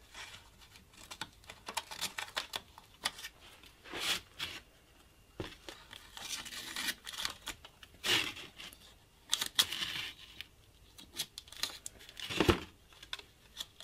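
Scissors snipping through a paper pattern stuck to a wooden block, with paper rustling and crinkling as the excess is trimmed away. Short, irregular snips and rustles come in clusters.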